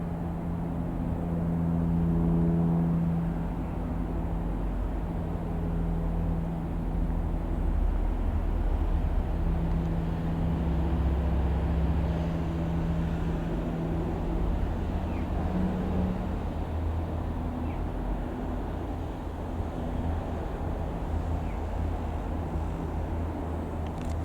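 Propeller-driven light piston aircraft droning steadily, a low hum with evenly spaced tones that swells a little now and then, over low outdoor rumble.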